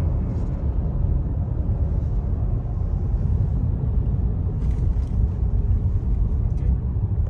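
A 4x4 driving, heard from inside the cabin: a steady low rumble of engine and tyres on the road. A few light clicks come about five seconds in.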